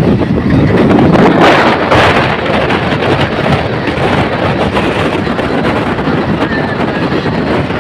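Wind buffeting the microphone of a phone held out of a moving passenger train's window, over the steady rumble of the train running along the track. The buffeting is loudest in the first couple of seconds and eases slightly after.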